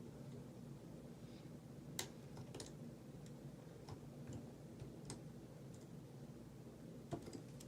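Faint, irregular clicks of a hook pick working the pin tumblers of an Abus 72/40 brass padlock, a few light ticks spaced a second or more apart over a faint steady hum.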